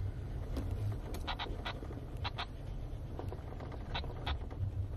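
Jeep Wrangler on 40-inch mud-terrain tyres crawling over a rocky trail: a low, steady rumble of engine and tyres, with short, sharp clicks or creaks coming irregularly every second or so, often in pairs.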